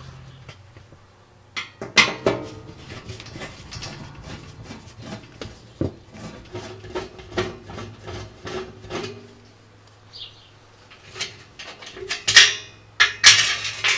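A Phillips screwdriver unscrewing the screws that hold down an electric oven's sheet-metal bottom panel, with a run of small metal clicks and scrapes. Near the end come louder metal clinks as the loosened screw and its washer are handled.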